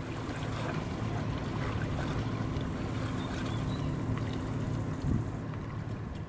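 Tugboat's diesel engine running with a steady low drone while towing a car carrier. A higher hum on top of the drone stops about five seconds in.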